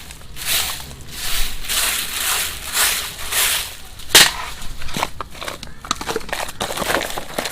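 Broom sweeping fallen leaves in steady strokes, a little more than one a second. About four seconds in there is a sharp knock, then quicker, crackly rustling of leaves.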